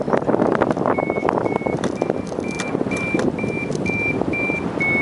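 Paraglider flight variometer beeping: short, evenly spaced beeps at about two a second, starting about a second in, the sign that the glider is climbing in rising air. Wind rushes over the microphone underneath.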